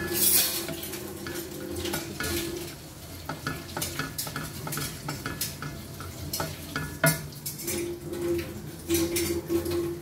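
Whole garam masala spices sizzling in hot oil in a non-stick wok, with a wooden spatula stirring and knocking against the pan in many short clicks.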